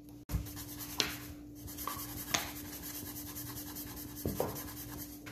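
Light rubbing and scraping on round metal cake pans full of batter, with a paper towel wiping the pan rims, and three light sharp knocks about one, two and four seconds in.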